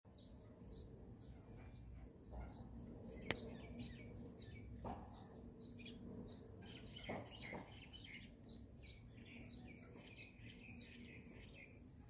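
Small birds chirping faintly in quick, repeated short notes, with one sharp click about three seconds in.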